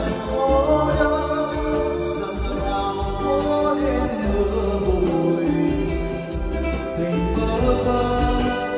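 A man singing karaoke into an LX Acoustic U-900 wireless microphone over a backing track, with voice and music both played loud through the PA speakers and a steady bass line underneath.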